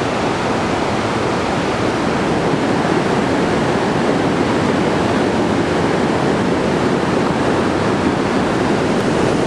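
Steady rushing of a fast mountain river running in white water over boulders.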